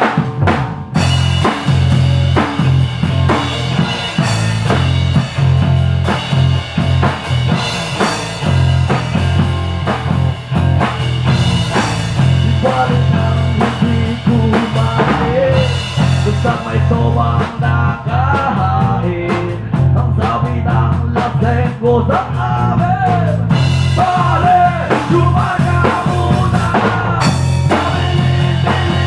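Rock band playing loudly in a rehearsal room: a drum kit keeping a steady driving beat under electric bass and electric guitars. A wavering melody line rides over it from about twelve seconds in.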